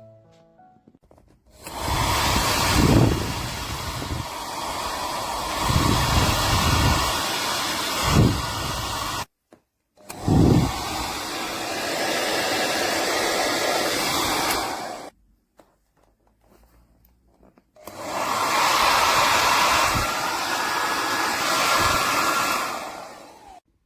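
DEWILY 1800 W ionic hair dryer blowing in three runs of several seconds each, switched on and off abruptly, with a few brief low gusts of air during the first two runs.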